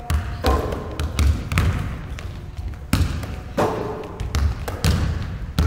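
Basketballs bouncing on a hardwood gym floor: irregular dribbling thuds about one or two a second, each echoing in the gym.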